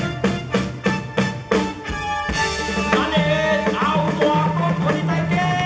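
Live band music played loud over a PA: a drum kit keeps a steady beat under held instrumental notes. A cymbal crash about two seconds in opens a fuller passage of the band.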